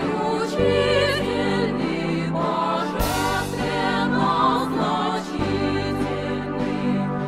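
Background music with wavering held melody lines and a sharp accent about three seconds in.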